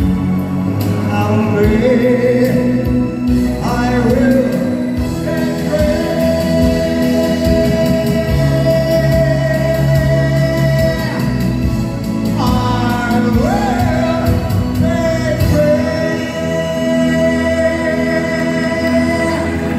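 Music with singing, loud throughout, with long held notes and a few sliding vocal phrases.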